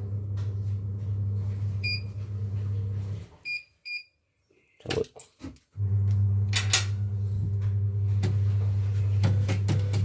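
Short, high electronic beeps from a portable embroidery machine's control panel as its keys are pressed: one about two seconds in, then two in quick succession. These sound over a steady low electrical hum, which cuts out for about two and a half seconds and then returns, with a few clicks and knocks.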